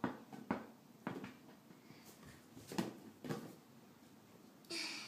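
A large rubber play ball bouncing on a carpeted floor as a toddler dribbles it: a handful of dull thuds at irregular intervals, with a short hissy noise near the end.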